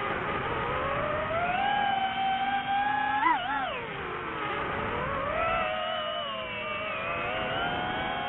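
Drone motors and propellers whining, the pitch rising, holding and dipping as the throttle changes: a sharp dip about three seconds in, a fall around four seconds, then a climb back.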